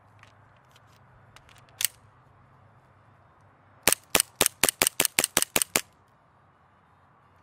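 Gas blowback airsoft pistol firing outdoors: one shot about two seconds in, then a quick string of about ten shots in two seconds, each a sharp crack with the slide cycling.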